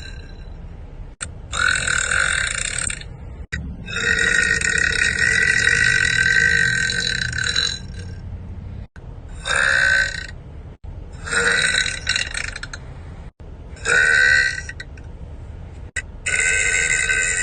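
A young woman burping loudly, six burps in a row with short gaps between them. The second is drawn out for about four seconds, and the rest are shorter.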